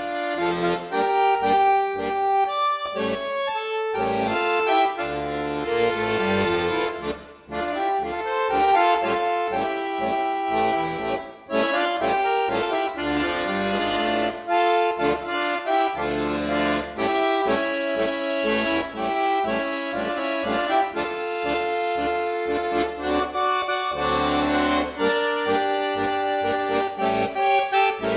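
Accordion music with a pulsing bass line, the melody moving in quick, changing notes, with two short breaks in the sound.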